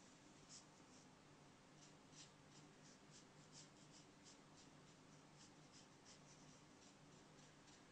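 Faint, soft strokes of a watercolour paintbrush on paper, short scratchy brushing sounds a few times a second, over a faint steady hum.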